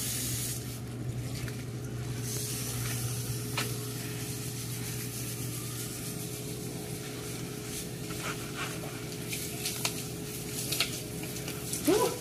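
Garden hose spraying water onto a crocodile's scales and the wet concrete, with a brush scrubbing its back, over a steady low hum. A few light knocks and clicks come near the end.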